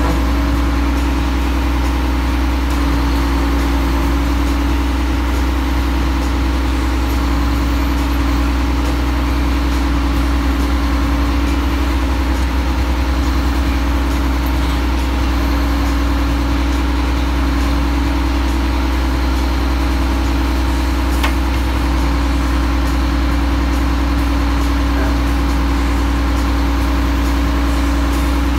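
Mack Superliner log truck's diesel engine running steadily at idle through loud exhaust pipes, with a deep, unchanging drone.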